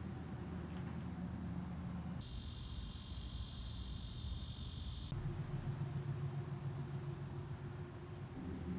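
Outdoor pond-side ambience: insects trilling in short, evenly repeated high pulses over a low steady hum. For about three seconds in the middle, a louder, steady high insect buzz takes over and the low hum drops away.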